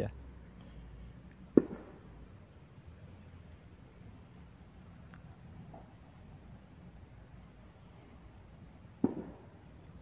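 Steady high-pitched drone of insects, such as crickets or cicadas, held at one pitch throughout. Two sharp knocks cut through it, a loud one about a second and a half in and a softer one near the end.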